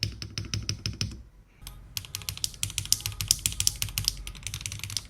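Mechanical keyboard switches and keycaps clacking on a foamless Weikav Nut65 with a 1.6 mm PCB, as keycaps are pressed down onto the switches. A quick run of clicks comes first, then after a short pause a longer, dense run of rapid clacks.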